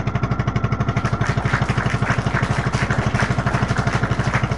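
Outrigger boat's engine running steadily with a rapid, even putter. A rushing hiss joins about a second in.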